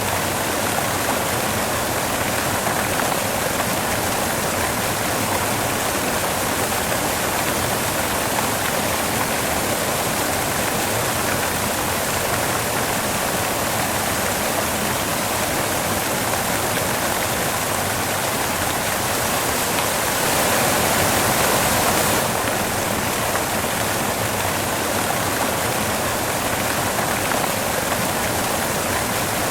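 Steady white noise: an even, unbroken hiss. About two-thirds of the way through it swells slightly for a couple of seconds, then drops back abruptly.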